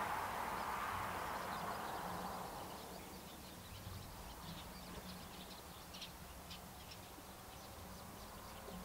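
Distant Boeing 747-400F jet engines at low power, their roar fading away over the first three seconds as the aircraft lines up on the runway. Faint bird chirps follow, over a low steady hum.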